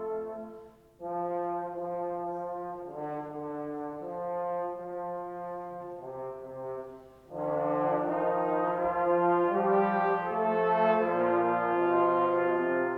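Slow instrumental music of sustained, held chords with a brass-like or organ-like tone, played in phrases. There is a short break about a second in and another about seven seconds in, and the music is louder after the second.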